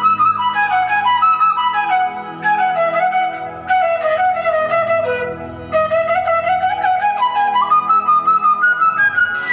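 Background music: a flute melody that winds downward for several seconds and then climbs back up, over a steady low drone.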